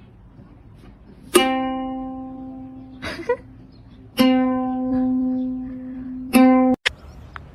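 A plucked string instrument, ukulele-like, sounds the same note three times, each one ringing and fading. The last note is cut off short.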